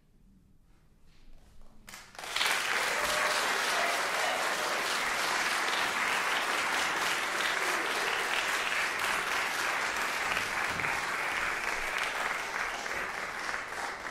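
Audience applauding: after about two seconds of near quiet the clapping starts suddenly and holds steady, easing slightly near the end.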